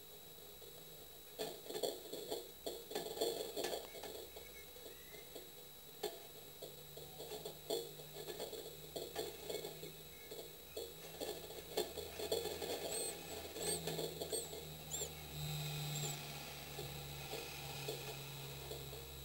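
Tit nestlings stirring inside a wooden nest box: scattered scratchy rustling as the chicks shift in the nest material, with a few brief, faint high cheeps in the second half as they start to gape. A faint steady hum runs underneath.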